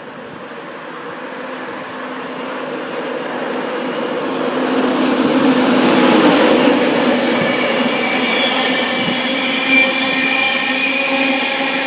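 A train approaching through the station, growing louder over the first six seconds, then running past with steady high-pitched wheel squeal.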